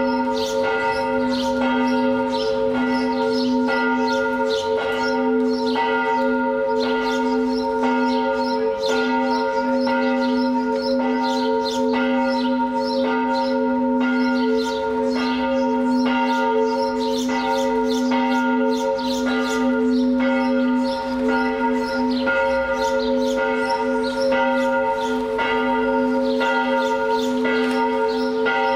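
Church bells pealing steadily, with a fresh stroke about once a second and the tones of several bells ringing on and overlapping.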